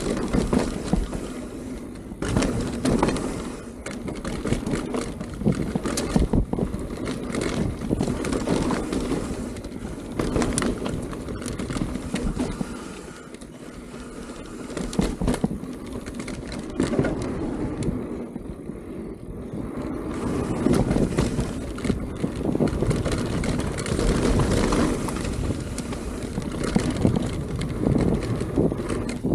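Mountain bike riding down a dirt flow trail: tyres rolling over dirt with frequent clicks and clatters from the bike's frame and chain, and wind rumbling on the microphone. The noise eases off briefly twice partway through.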